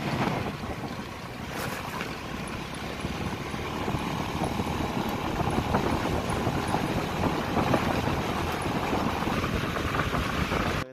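Motorcycle running along a dirt track, its engine mixed with steady wind noise buffeting the microphone and the rumble of tyres on the dirt.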